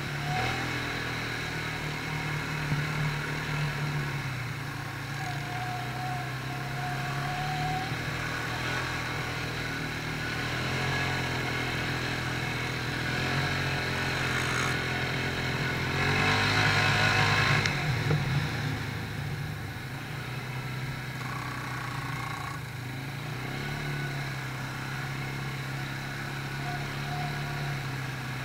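Quad bike (ATV) engine running as it rides along a muddy track. Its pitch rises and falls with the throttle, and about two thirds of the way through there is a louder rush of noise for a couple of seconds.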